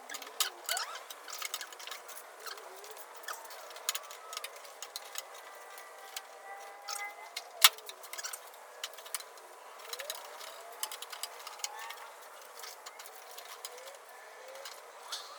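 Handling noise from refitting a car door's window regulator: repeated small clicks, taps and scrapes of the regulator arm against the steel door frame and its channel, with one sharp knock a little past halfway.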